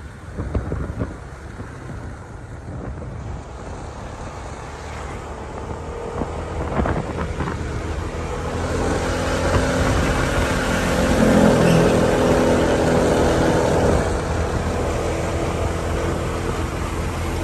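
Motorcycle engine running while riding, with wind rushing over the microphone; the engine gets louder from about halfway through and stays up to the end.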